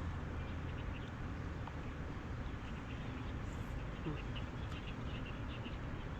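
Steady outdoor background noise with a low rumble and faint short high chirps scattered through it.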